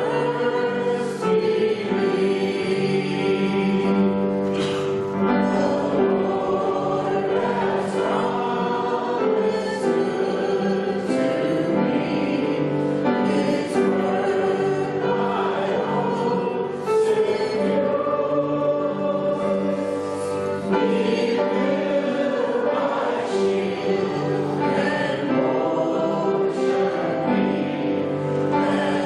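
Congregation singing a hymn together, many voices over steady musical accompaniment.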